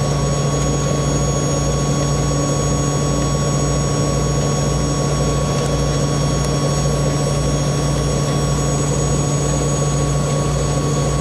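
Fishing vessel's diesel machinery running steadily: a low, evenly pulsing throb with a strong steady hum and a thin high whine above it.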